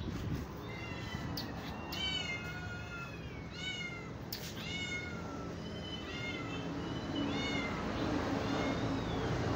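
A calico mother cat and her kittens meowing: a quick run of short, high mews, each rising then falling, coming less often near the end.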